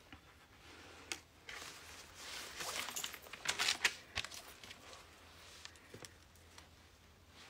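Faint rustling and handling noises with a few soft clicks, dying away after about four seconds.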